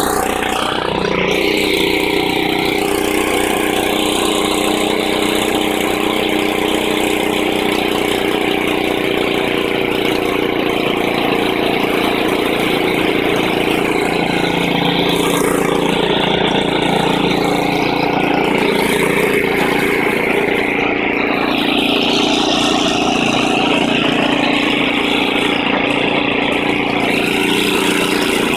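1961 Ariens 10ML-35 snowblower's small four-stroke engine running steadily out of gear, with auger and wheels not engaged. It runs pretty good, on fresh gas and fresh oil, with its carburetor not yet cleaned.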